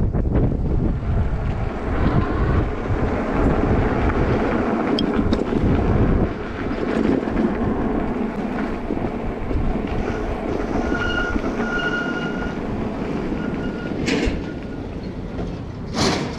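Wind buffeting the microphone over a continuous rumble of riding an e-bike. A few short high-pitched squeals come about two-thirds of the way through, and two sharp clicks near the end.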